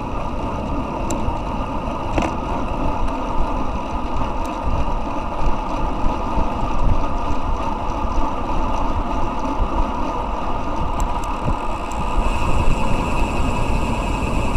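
Steady wind rush over the microphone of a road bike's handlebar camera at about 35–40 km/h, with tyre noise on asphalt. Near the end a higher steady buzz comes in as the rider stops pedalling and coasts, the freehub spinning.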